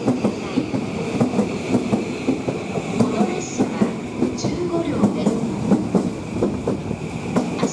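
JR East E235-1000 series electric train running into the platform, its wheels clicking over the rail joints above a steady running rumble.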